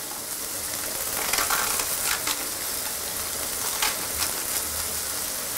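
Steady frying sizzle from hake burgers on a grill pan and shredded cabbage in a pan of hot oil, with a few short crisp snaps as a knife cuts cabbage over the pan.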